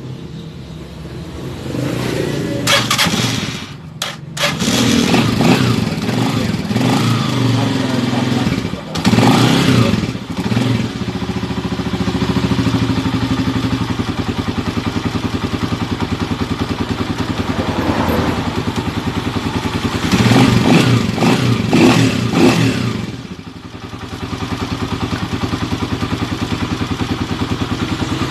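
Motorcycle engine running just after a valve clearance adjustment: it idles steadily and is revved up in short bursts near the start, around nine seconds in and again around twenty seconds in. It runs smoothly, which the mechanic calls a very good running.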